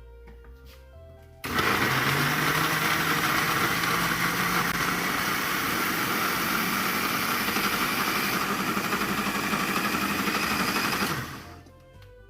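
Electric blender running, puréeing chopped peeled tomatoes: it starts suddenly about a second and a half in, runs steadily for about ten seconds, and stops shortly before the end.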